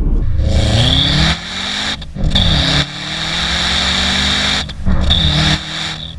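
Exhaust of a modified Subaru Impreza WRX's turbocharged flat-four, with a decat downpipe, Hayward and Scott centre section and Prodrive backbox, heard at the tailpipe under hard acceleration. The engine note climbs in pitch, with short breaks and drops in pitch about a second and a half, two seconds and nearly five seconds in as the driver changes gear or lifts off.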